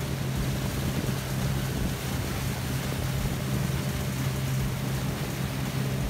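Boat engine running steadily with a constant low hum, under a broad wash of wind and water noise.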